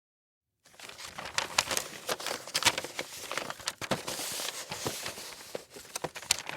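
Paper being crumpled and crinkled by hand, a dense run of sharp crackles that starts suddenly after a brief silence.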